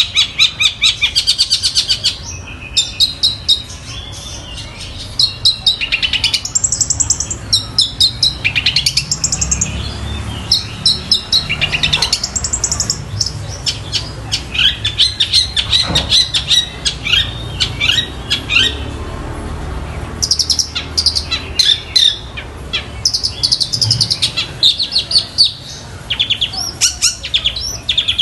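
Long-tailed shrike (cendet) singing in loud bursts of rapid, repeated chips and trills, its song built from mimicked calls of fighting tree sparrows and a kingfisher.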